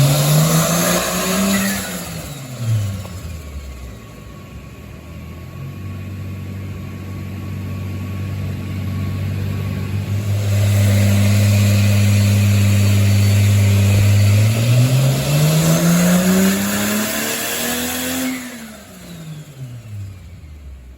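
Turbocharged Toyota 2JZ-GE VVTi inline-six in a Lexus IS300 making dyno pulls at about 5 psi of boost. Near the start one pull winds down. After a lull the engine is held steady, then climbs under full throttle for about four seconds and falls away as it coasts down.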